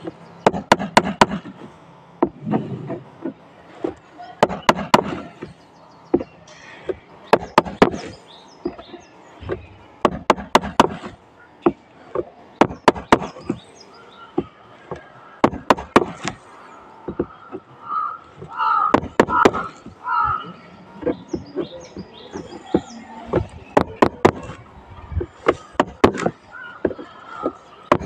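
Small hammer tapping the plastic handle of a screwdriver used as a chisel, driving its blade into a hard surface: sharp taps in quick clusters of several strikes with short pauses between.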